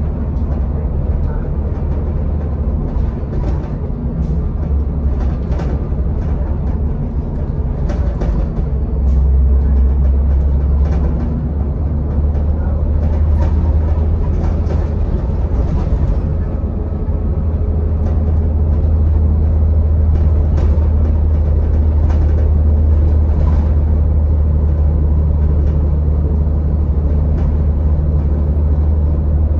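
A Denning Phoenix low-floor bus with a Caterpillar diesel engine, heard from inside the cabin while under way: a steady low engine drone with scattered knocks and rattles from the body and fittings. The drone grows louder about nine seconds in.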